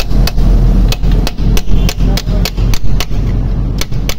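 A hammer striking a flat-tip punch set against the edge of a freeze (core) plug in a Chevrolet Aveo's engine block, to knock the plug out. A quick, even series of sharp taps, about three or four a second.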